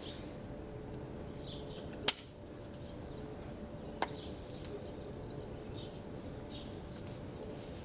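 Two sharp clicks of hand pruners, about two seconds apart, the first the louder. Faint bird chirps and a steady low hum underneath.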